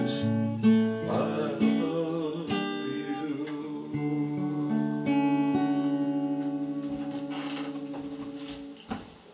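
Acoustic guitar strummed, with a male voice singing a last line in the first couple of seconds, then the song's final chord held and ringing out, fading slowly before cutting off near the end.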